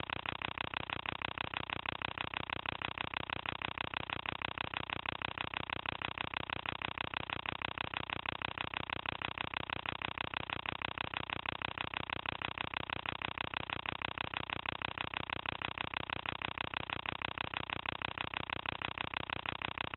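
Cine film projector running: a steady, rapid, evenly paced mechanical clatter from its film-advance mechanism.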